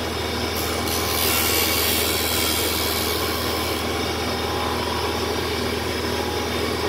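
Homemade bench disc sander's electric motor running with a steady hum while a thin wooden strip is pressed against the spinning sanding disc. The rasping hiss of the wood being ground to a 45-degree angle is loudest in the first half and lighter after.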